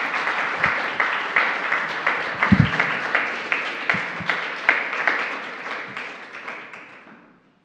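Audience applauding at the end of a lecture, the clapping dying away near the end, with a dull low thump about two and a half seconds in.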